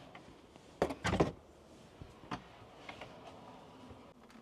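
A light click a little under a second in, then a short clatter and a few faint knocks: a folded plastic step stool being carried and set down to stow it.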